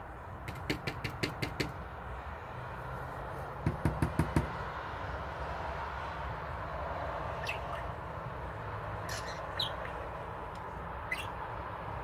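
A budgerigar gives four short, high chirps, each falling in pitch, over a steady low hum. Before them come two quick runs of clicking taps, the second louder and knock-like.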